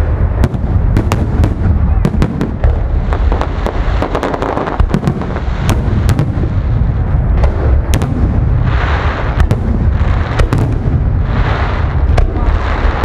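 Aerial firework shells bursting in quick succession: many sharp bangs and cracks over a continuous low rumble, with two stretches of denser crackling, one about two-thirds of the way in and one near the end.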